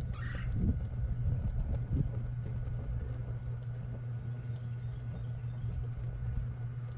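Wood fire burning with open flames in a small kettle grill, with a few faint crackles over a steady low rumble and hum.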